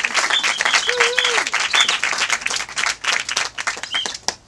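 Crowd applauding with dense clapping, cheering, a shout about a second in and a few short whistles. The clapping thins out near the end.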